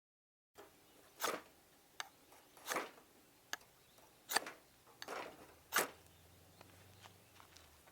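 Dry firewood crackling and snapping: about seven sharp, irregular cracks over six seconds, some short and some lasting about a third of a second.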